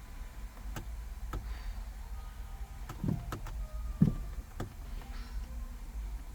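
A few scattered sharp clicks and dull knocks, the loudest about four seconds in, over a steady low hum. No engine cranking is heard: the no-crank fault.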